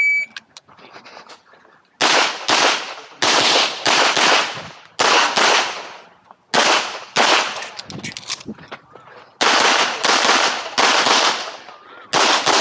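Start beep of a shot timer, then handgun fire: about fifteen shots from about two seconds in, mostly in quick pairs and short strings with brief pauses between groups, each crack followed by a ringing echo.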